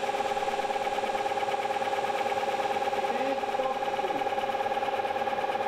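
Bicycle disc brake pressed against its rotor while a large metal lathe spins the rotor at 500 rpm: a steady pitched tone made of several pitches, pulsing fast, about eight times a second.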